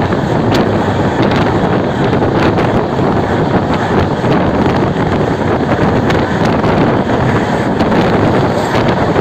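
Moving passenger train heard on board: a steady rush of wind buffeting the microphone over the running noise of the coach and wheels on the track, with a few faint clicks.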